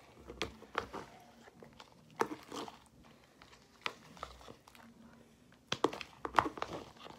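Homemade glue and liquid-starch slime being kneaded and squeezed by hand in a plastic container: scattered small sticky clicks and squelches, busiest near the end.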